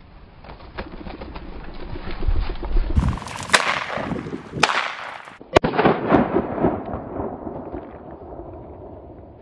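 Shotgun fired twice, about a second apart, at a flushed bobwhite quail. Before the shots there is a low rumble of wind on the microphone.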